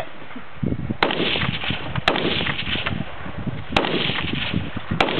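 Four rifle shots fired at a slow, uneven pace, one to one and a half seconds apart, each a sharp crack with a trailing echo.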